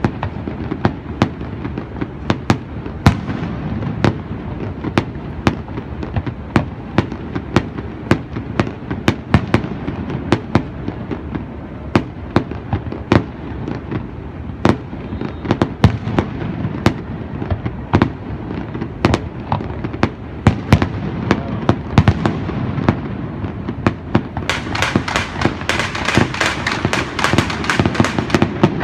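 Aerial fireworks shells bursting in a steady string of sharp booms, about one or two a second, over a continuous low rumble. Near the end comes a dense spell of crackling bursts.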